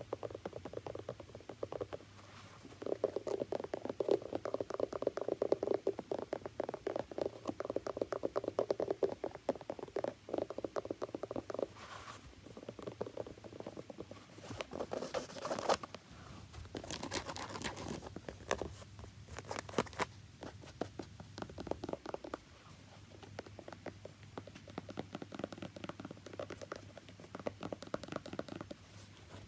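Close-miked rapid tapping and scratching on a shoe: dense runs of quick light clicks, with a few sharper, louder strokes about halfway through.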